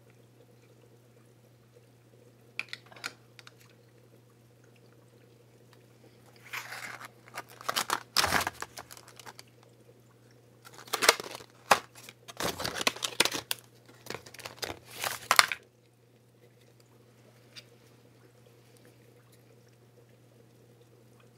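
Plastic packaging of a small digital aquarium thermometer crinkling and rustling as it is unwrapped by hand, in several irregular bursts over about ten seconds, after a few light clicks. A faint steady low hum runs underneath.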